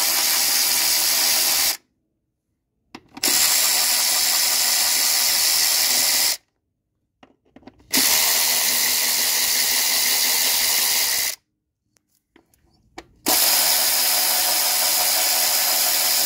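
Cordless electric ratchet running in four spells of about three seconds each, with short pauses between, as it spins out the 8 mm coil-pack screws on a Ford 5.0 L V8's valve cover.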